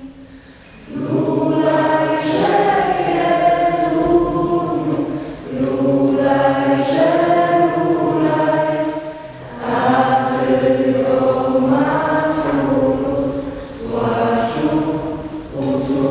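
Mixed choir of young voices singing a Christmas carol in several sustained phrases of a few seconds each, with brief breaths between them.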